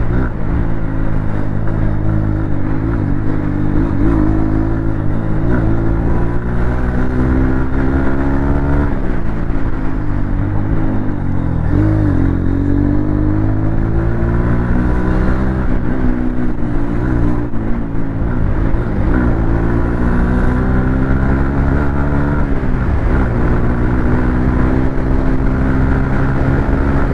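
Exhaust note of a Honda CB200X's single-cylinder engine through an aftermarket Akrapovic slip-on muffler, running under throttle. The pitch climbs slowly over several seconds and then drops sharply, again and again.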